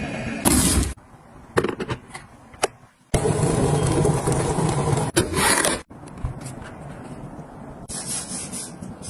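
Rubbing and scraping noises in several short segments that start and stop abruptly, with a few sharp clicks in the quieter stretches between them.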